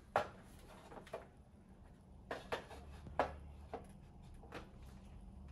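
About seven light, scattered taps and clicks from handling the Roborock H7 vacuum's wall mount and its screws against the wall, the loudest just after the start and about three seconds in.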